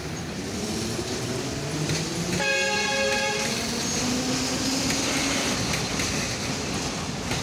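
Kyiv metro train pulling away, its traction motors whining and slowly rising in pitch over running noise. About two and a half seconds in, the train gives one horn blast lasting about a second.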